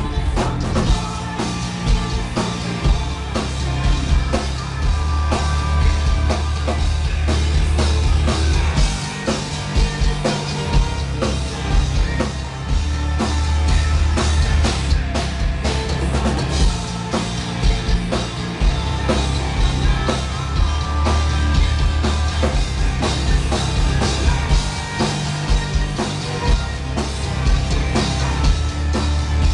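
Live metal band playing loud: drum kit, bass and guitar, with a singer.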